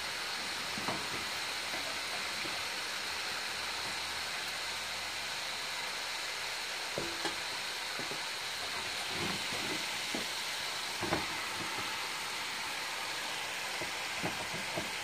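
Sliced potatoes and onions sizzling in hot oil in a skillet, a steady frying hiss, with a spatula scraping and knocking against the pan now and then as they are turned.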